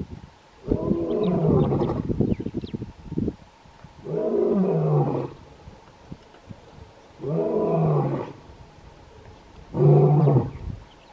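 Lion roaring: four deep calls, the first about two seconds long, the next three shorter and spaced about three seconds apart, each dropping in pitch toward its end.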